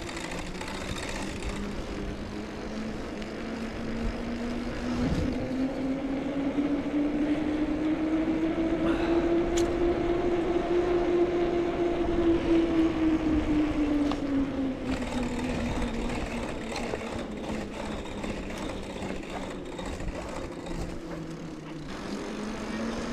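Bicycle coasting downhill: a steady hum from the rolling tyres rises slowly in pitch as the bike gathers speed, peaks about eleven seconds in, then falls back as it slows. Wind rushes and buffets the microphone.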